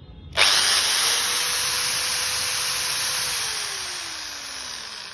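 Stanley 600-watt corded hammer drill run in the air at full trigger, with no load: a steady high motor-and-fan whine. About three seconds in the trigger is let go, and the drill spins down with falling pitch.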